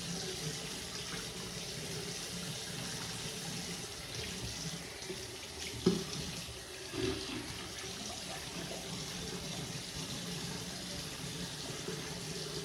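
Water running steadily, with a brief knock about six seconds in.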